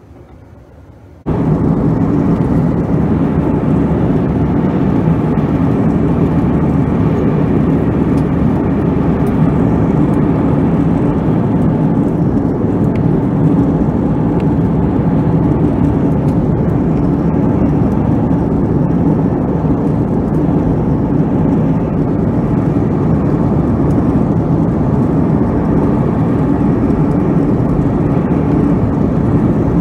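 Steady cabin noise of an Airbus A321-200 airliner in flight, heard at a window seat over the wing: an even drone of engines and rushing air with a low steady hum under it. It cuts in abruptly about a second in after a much quieter stretch.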